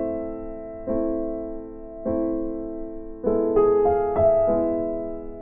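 Background music: slow electric-piano chords struck about once a second, each ringing and fading, with a quick run of notes a little past the middle.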